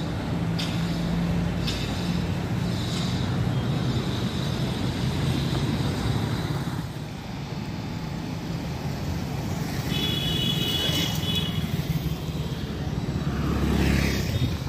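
Road traffic noise on a city street: engines running and vehicles passing, with a short high-pitched horn about ten seconds in.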